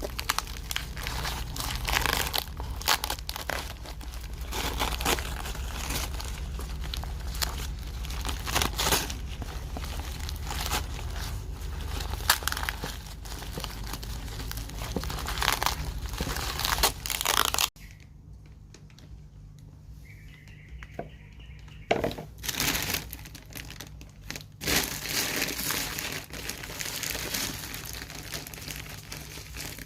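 Plant packaging being crinkled and torn open by hand: irregular rustling and ripping, which cuts off abruptly about two-thirds through, then starts again after a quieter stretch.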